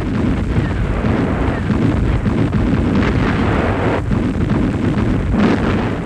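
Heavy gunfire and explosions merging into one continuous, loud rumble of battle.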